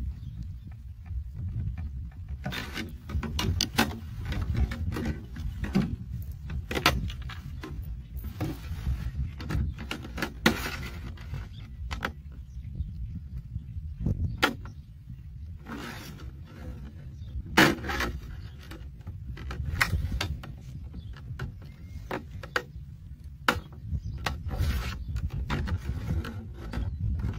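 Scissors cutting through a clear plastic bottle: irregular sharp snips and crackles of the plastic, over a steady low rumble.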